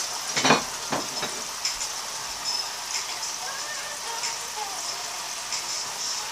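Cod in sauce sizzling in a skillet, a steady crackling hiss, with two sharp knocks about half a second and a second in.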